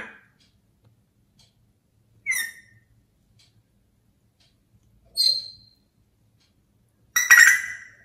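African grey parrot calling: short, high-pitched calls spaced two to three seconds apart, the last one, near the end, louder and longer.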